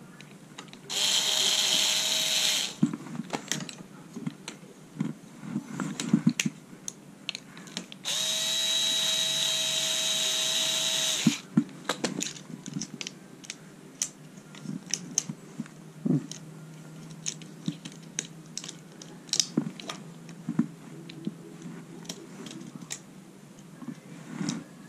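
Cordless electric screwdriver running in two steady bursts, one of about two seconds and then one of about three seconds, with an even motor whine, driving in the mounting screws of a rear bicycle kickstand. Between and after the bursts come scattered clicks and knocks from the kickstand and tools being handled.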